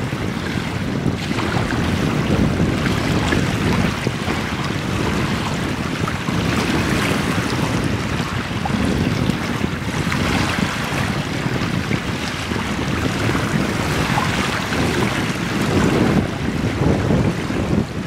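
Small waves lapping and washing up a concrete slipway, with wind buffeting the phone's microphone in a steady low rumble.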